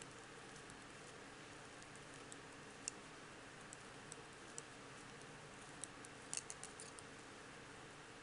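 Faint, irregular clicks of aluminium double-pointed knitting needles tapping together as stitches are purled, over a low steady hiss, with a quick cluster of clicks about six seconds in.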